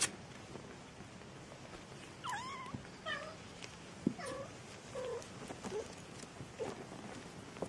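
Three-week-old kittens mewing: about six short, high, thin mews, starting about two seconds in, some rising and falling in pitch. A single click right at the start.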